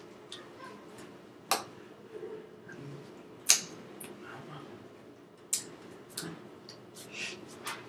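Hands clapping and slapping against each other while signing in sign language: several sharp taps, the loudest about three and a half seconds in, with soft mouth and breath sounds over a low steady hum.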